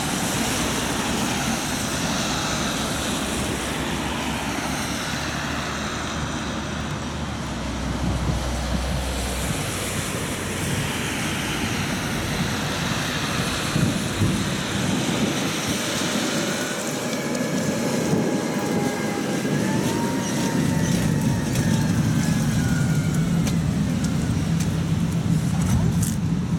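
Tatra T3 tram heard from inside the car: a steady rumble and hum, with a squeal that glides up and down for a few seconds about two-thirds of the way in. A few sharp clicks come near the end.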